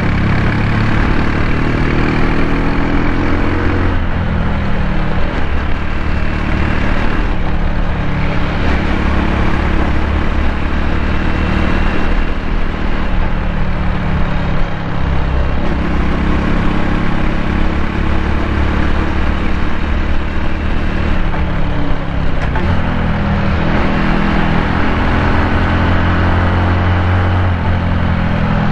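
Honda Cross Cub's single-cylinder four-stroke engine running while riding. Its pitch shifts up and down several times, under steady wind and road noise.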